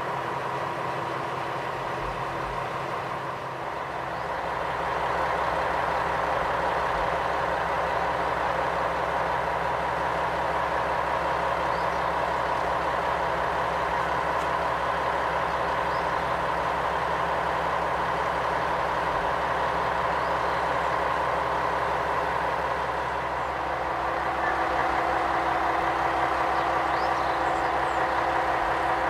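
KiHa 120 diesel railcar engine running steadily at a low, idle-like pace, growing louder about four seconds in and again near the end.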